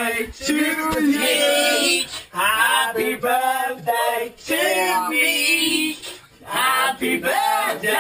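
Male and female voices singing together, in phrases of a second or two broken by short pauses.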